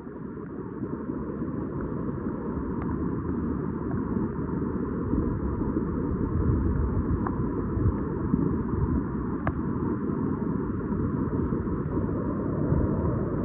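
Flash floodwater rushing across a road, a steady heavy rushing noise that builds slightly over the first few seconds.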